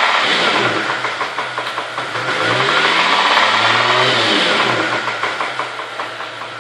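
Holden VZ Commodore engine being revved and let drop back to idle, once in full about two seconds in, with a fast, even knocking running through it that quickens as the revs rise.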